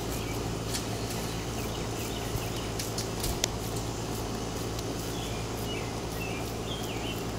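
Outdoor background: a steady low hum with a few faint bird chirps scattered through.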